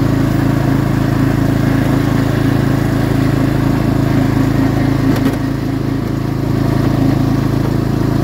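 Cub Cadet XT1 riding mower engine running steadily under way as the mower drives across the lawn, easing off slightly just past halfway.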